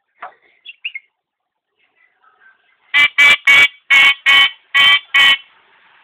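Common myna calling: a few short whistles in the first second, then seven loud, harsh calls in quick succession, about three a second.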